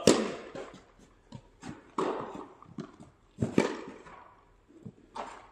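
Tennis rally: racket strikes on the ball about every one and a half to two seconds, the loudest right at the start, with fainter knocks of ball bounces in between.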